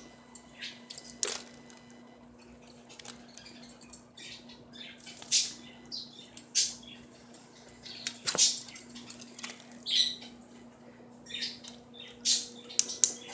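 Quaker parrot bathing, fluttering its wings in water in a dozen or so short, irregular bursts of splashing.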